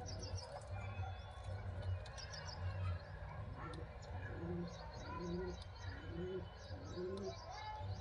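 Pigeon cooing: a run of about five low coos from about four seconds in, over faint high chirps.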